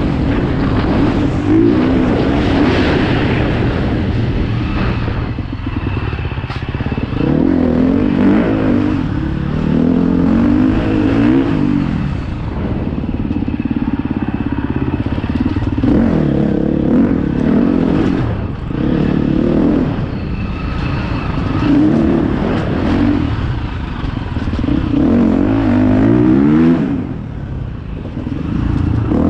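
Dirt bike engine running under load, revving up and easing off again and again, every few seconds.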